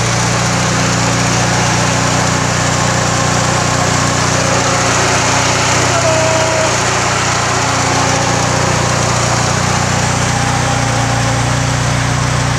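Ford Sierra Cosworth's turbocharged 2.0-litre YB four-cylinder engine idling steadily, heard close up from the open engine bay.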